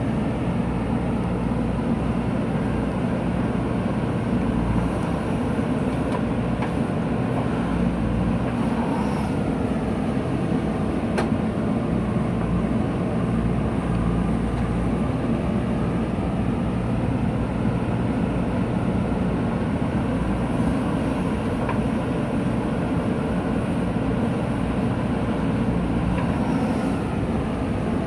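JCB 3DX backhoe loader's diesel engine running steadily under load while the backhoe digs soil.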